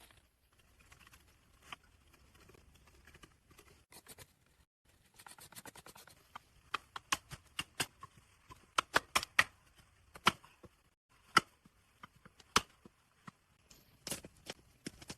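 A run of sharp, irregular clicks and snaps, sparse at first, then coming thick and loud from about five seconds in.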